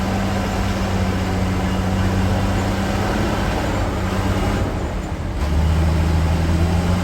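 Heavy construction machinery diesel engine running steadily, its note dropping briefly about five seconds in and then coming back louder and deeper as the machine works harder.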